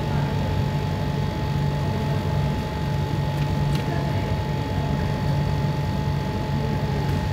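Steady low hum with an even hiss and a faint constant tone: background room or electrical noise, with no other event standing out.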